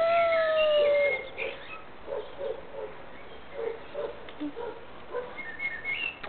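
A high-pitched whining call, held for about a second and falling slightly in pitch, followed by faint short blips at irregular intervals.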